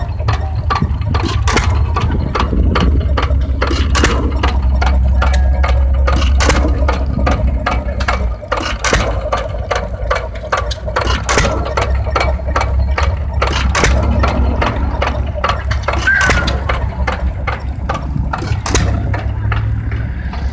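Early-1900s stationary gas engines running, with a steady low rumble and many irregular sharp pops and clicks.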